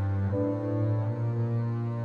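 Background music: slow, sustained low notes, the chord changing about every second.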